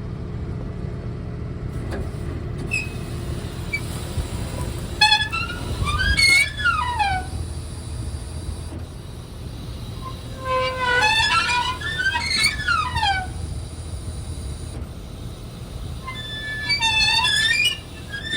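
Tractor running steadily under a baler that is cycling, with a high squeal falling in pitch three times, about every five to six seconds, as the baler's mechanism works.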